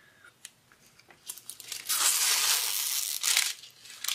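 Clear plastic cover film on a diamond painting canvas crinkling under a hand as it is smoothed flat: a continuous rustle of about two seconds starting just over a second in, with a few sharp crackles near the end.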